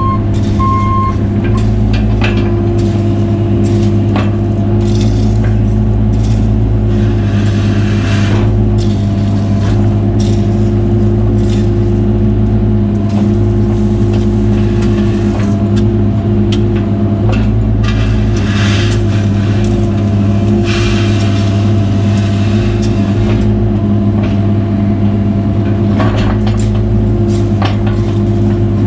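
Cat 303 mini excavator's diesel engine running steadily at working revs, with bursts of noise now and then as the machine works. Its travel alarm beeps a couple of times in the first second.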